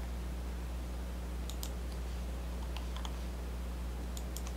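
A few scattered light clicks from a computer keyboard and mouse, in small clusters, over a steady low electrical hum.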